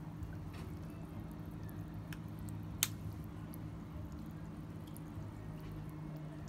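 Light water drips and small clicks over a steady low hum, with one sharper click about three seconds in.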